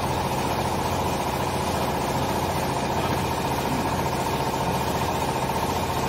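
Steady hum of running machinery, with a constant high whine running through it.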